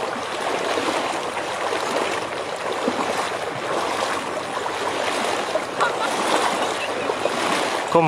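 Fast-flowing flash floodwater rushing across a paved road, a steady, even rushing noise.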